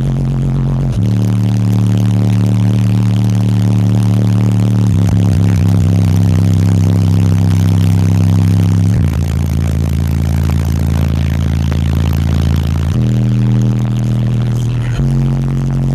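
Car audio system, Sundown Audio subwoofers running on XS Power batteries alone, playing a bass-heavy track very loud. It plays long, steady bass notes that jump to a new pitch every few seconds.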